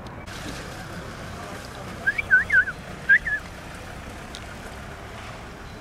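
Short high-pitched wavering animal calls: a quick run of three or four about two seconds in, then one or two more a second later.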